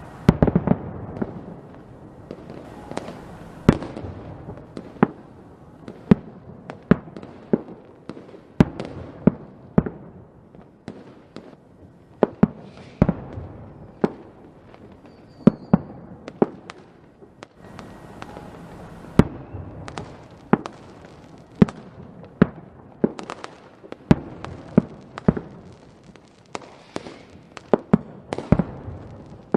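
Fireworks going off in a continuous display: a steady run of sharp bangs and cracks, one or two a second, some with a crackling tail, over a low rumble of further bursts.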